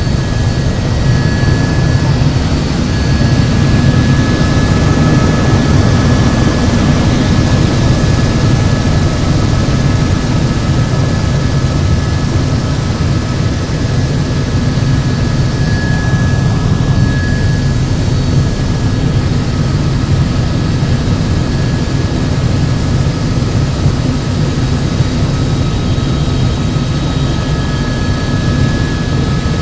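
Helicopter in flight: steady, loud rotor and engine noise with a deep rumble and a thin, steady high whine over it.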